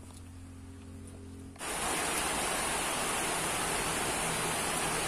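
Rain falling, a steady dense hiss that cuts in suddenly about a second and a half in. Before it there are only faint clicks from eating by hand.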